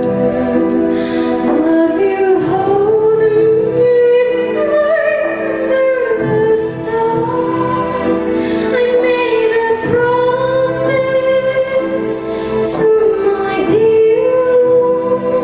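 A young girl's solo singing voice, amplified through a microphone, in a classical-crossover style, holding long gliding notes over a soft instrumental accompaniment.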